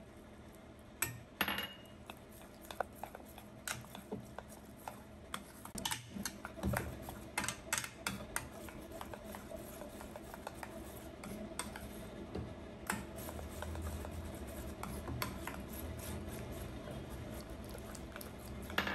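Metal spoon stirring thick, wet batter in a stainless-steel bowl, with irregular clinks and scrapes of the spoon against the bowl.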